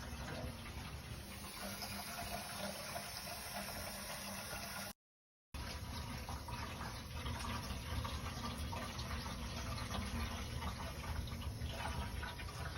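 Water running steadily, a continuous rushing flow like water filling or pouring through pipework. The sound cuts out completely for about half a second about five seconds in, then resumes.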